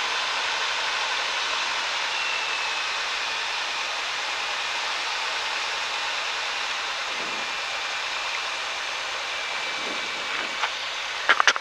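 Steady rushing cabin noise of a Cessna 172, air and engine, as it descends over the runway to land. A few short sharp clicks come near the end.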